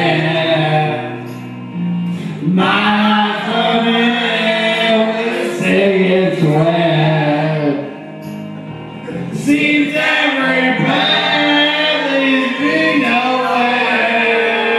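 Music with a group singing along, a man's voice over a microphone leading. The singing drops back briefly about two seconds in and again around eight seconds.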